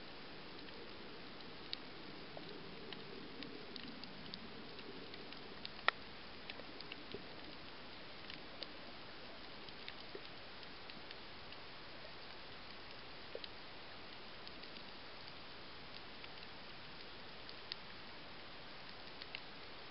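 Underwater reef ambience heard through a camera's waterproof housing: a steady hiss broken by scattered sharp clicks and crackles, one louder click about six seconds in.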